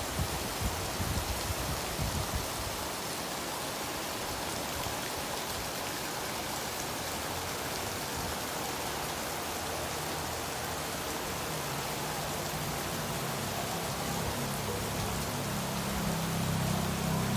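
Heavy rain pouring steadily, with low thumps in the first couple of seconds and a low rumble that builds toward the end.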